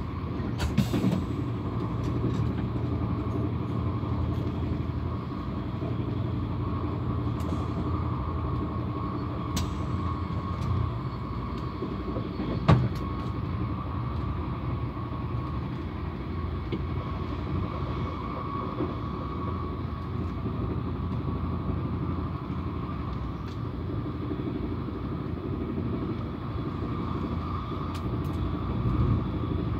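Running noise of a TGV inOui high-speed train heard from inside the carriage: a steady rumble of the wheels on the rails with a faint steady whine. A few sharp clicks or knocks cut through, the loudest about 13 seconds in.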